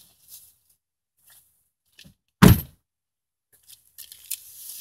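A car door shut with one solid thunk about halfway through. Faint rustling near the end.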